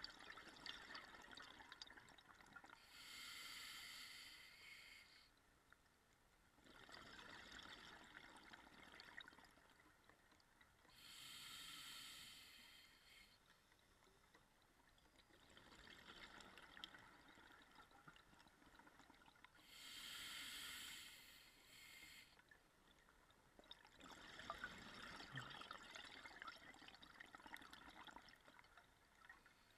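Faint scuba diver breathing through a regulator: a hiss on each inhalation, then bubbling as the breath is let out. The cycle repeats slowly, about every eight or nine seconds, three times.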